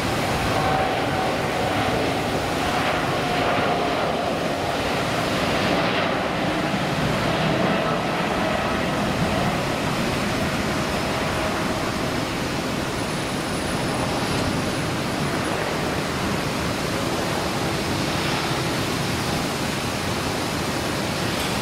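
Boeing 787-9 Dreamliner's Rolls-Royce Trent 1000 engines at takeoff thrust: a steady, loud jet rush as the airliner rolls, lifts off and climbs away. A faint whine in it slides slowly down in pitch over the first several seconds as the aircraft passes.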